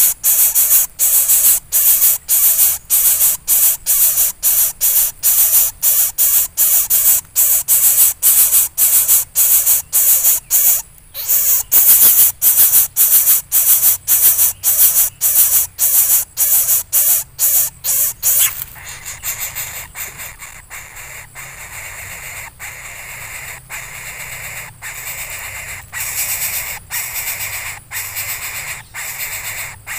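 Greater coucal nestlings begging in the nest: harsh hissing calls repeated about twice a second, loud for the first two-thirds, then dropping after about 18 seconds to a fainter, steadier hiss.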